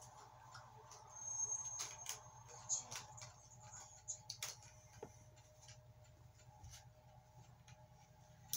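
Faint scattered clicks and taps of small metal hardware handled in the fingers, a washer and fasteners being fitted onto a shaft, mostly in the first half, over a faint steady hum.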